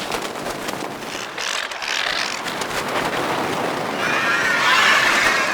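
Star Wars Geonosis cave ambience sound effect: a continuous dense bed of rustling and clicking, with wavering insect-like creature chittering that grows louder about four seconds in.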